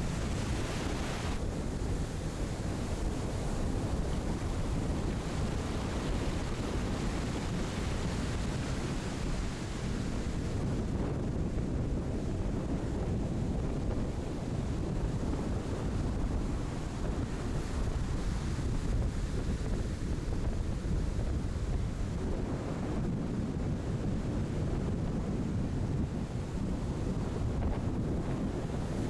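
Heavy storm-driven surf breaking continuously, with wind buffeting the microphone.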